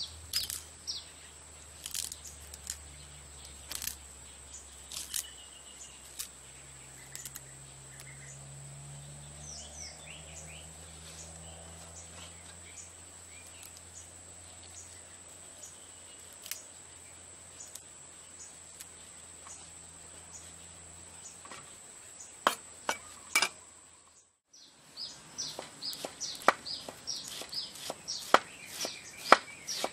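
Hands pulling the waxy bracts off a torch ginger flower bud, heard as scattered crisp clicks and snaps. After a break about 25 seconds in comes a knife chopping the bud finely on a wooden board in quick repeated strokes. Birds chirp throughout over a steady high-pitched whine, with a low hum through most of the first part.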